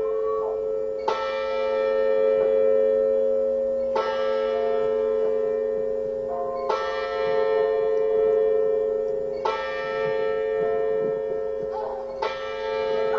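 Church bell tolling, struck five times at an even pace of about one stroke every three seconds, each stroke's hum ringing on into the next.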